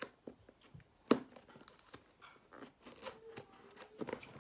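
A black cardboard box being opened by hand: scattered taps, scrapes and rustles of the box and lid being handled, with one sharp knock about a second in.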